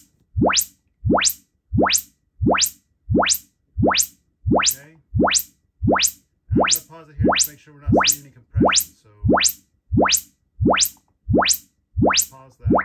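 Arendal 1723 Monitor THX loudspeakers playing a repeating test-tone sweep: a loud sine chirp rising from deep bass to the highest treble in about a third of a second, about three chirps every two seconds. This is a frequency-response measurement sweep at a level raised 5 dB to test the speakers for compression.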